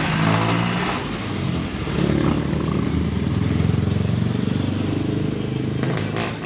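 Street traffic passing close by: a jeepney's diesel engine running past, then a passenger van going by with its engine note rising as it accelerates.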